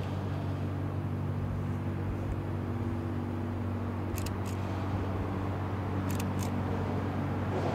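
Steady low drone of a large bulk carrier's diesel engine as the ship passes, with short high chirps in pairs about every two seconds.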